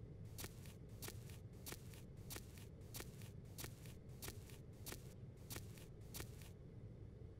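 Soft, quick footsteps, about three a second, each a short brushing scuff; they stop about six and a half seconds in.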